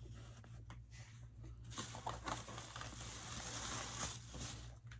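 Takeout food packaging being handled and opened: plastic containers and a bag rustling and crinkling, with a few light clicks, loudest in the middle.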